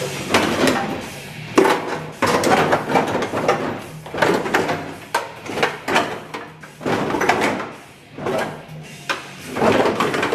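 The sawn-off rear section of a Jeep Compass's sheet-metal body being shoved and dragged, with repeated irregular metal clanks and scraping.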